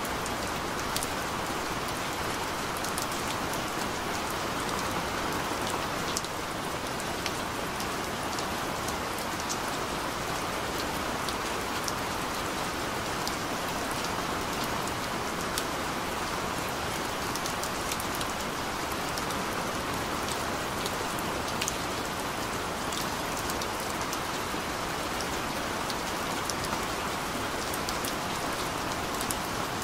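Steady rain falling: an even hiss with scattered light, sharp drop ticks.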